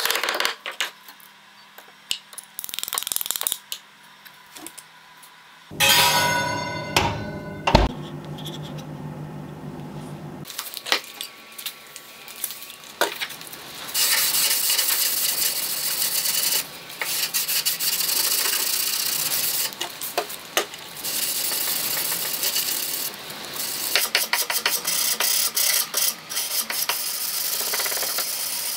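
Burnt scale being knocked off a heat-treated steel file blade with a screwdriver handle: scattered taps, then a few seconds of metallic ringing with one sharp hit. From about halfway on, the blade is hand-sanded with sandpaper on a wooden block, a steady rasping rub in back-and-forth strokes.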